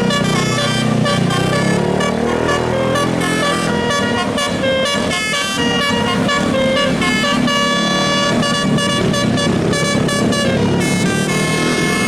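Bus 'telolet' musical air horn, a multi-trumpet horn, playing a fast melody of short stepped notes without a break.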